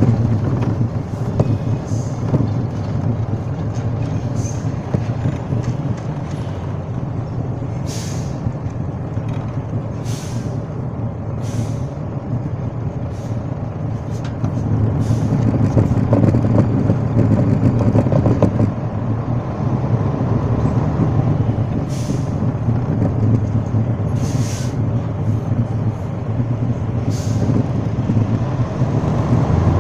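Heavy truck engines running with a steady low rumble that grows louder about halfway through. Short, sharp air-brake hisses break in every few seconds.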